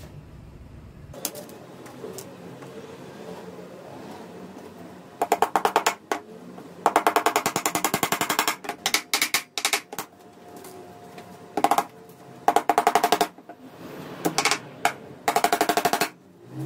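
A small hammer driving thin nails through a wooden strip into a hardboard sled base, in quick runs of rapid taps starting about five seconds in.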